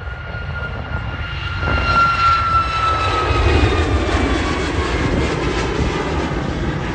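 Jet airliner passing close by, its engines' whine gliding slowly downward as it goes past, with a rush of engine noise that swells about two seconds in. Low wind buffeting on the microphone underneath.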